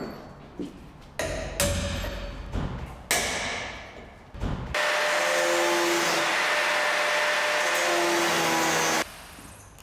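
A hammer striking a screwdriver set against the edge of a door: a few sharp blows, each ringing briefly. About five seconds in, a loud steady noise starts, and it cuts off abruptly about four seconds later.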